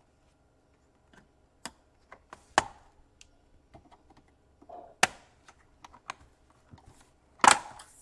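Irregular plastic clicks and snaps as a Dell Inspiron 15 5000 laptop keyboard is pried up with a thin pry tool, its latches releasing and keys clicking under the fingers. The loudest snap comes near the end, as the keyboard comes free.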